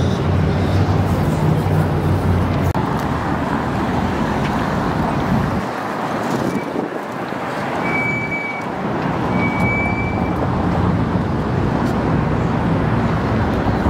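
Downtown street traffic: a steady rush of passing cars and engines, with a vehicle's low engine hum for the first five seconds or so. Two short high-pitched tones sound a little past the middle.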